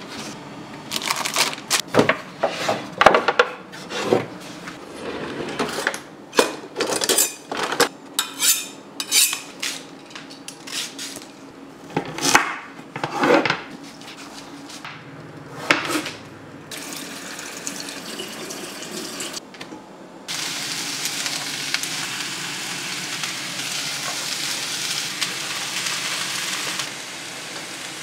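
Kitchen prep sounds: dishes and utensils clattering and a knife chopping an onion on a wooden cutting board, in a run of sharp knocks. From a little past halfway, a skillet of chopped mushrooms, onions and potatoes sizzles steadily, and it gets louder about two-thirds of the way through.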